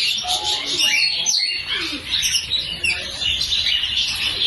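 Many small caged birds chirping and calling at once, a dense, continuous chatter of overlapping high chirps and trills.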